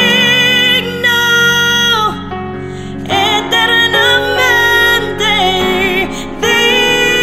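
A woman singing a slow worship song over keyboard accompaniment, holding long notes with vibrato across a few phrases.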